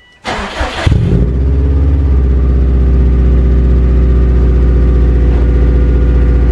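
2005 Subaru WRX STI's turbocharged 2.5-litre flat-four being started: a brief crank, then the engine catches about a second in and settles into a loud, steady idle.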